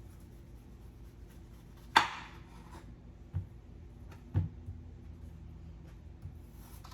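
Knife chopping peeled potatoes on a cutting board: a few separate sharp strikes, the loudest about two seconds in, over a low steady hum.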